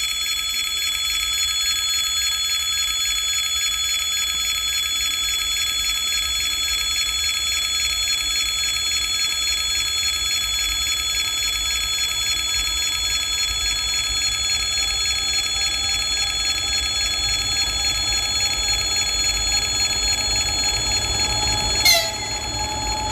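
EP20 electric locomotive hauling a passenger train approaching, its hum slowly rising from about two-thirds of the way in, with a brief loud sound near the end. A steady high-pitched ringing of several tones runs under it throughout.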